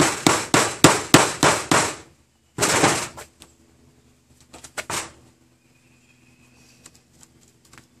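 A run of seven quick, sharp knocks in under two seconds: a wooden board rapped against a sheet-metal table top. About two and a half seconds in comes a short scrape, then a couple of faint clicks.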